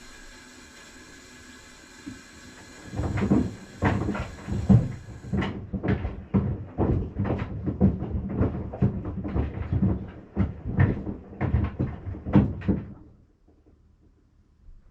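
Maytag washing machine running with sandals in the drum: a steady machine hum, then a long run of irregular knocks and thumps, a few a second, as the sandals bang against the drum. The knocking stops suddenly near the end.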